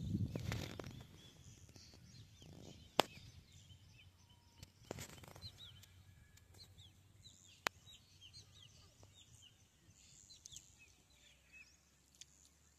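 Faint outdoor ambience of small birds chirping, many short falling chirps scattered throughout, with two sharp clicks, about three seconds in and again near eight seconds.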